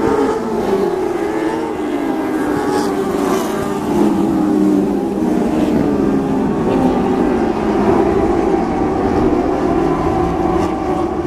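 A pack of motorcycle-engined dwarf race cars running laps on a dirt oval, several engines overlapping at high revs, their pitch rising and falling as they go through the turns.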